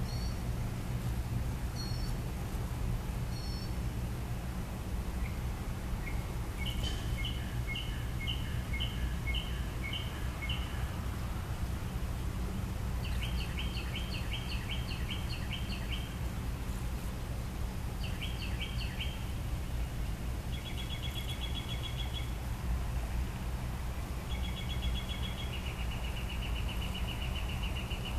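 Northern mockingbird singing: a string of different phrases, each a quick run of the same high note repeated several times before it switches to a new one, ending in a long, fast trill. A steady low hum runs underneath.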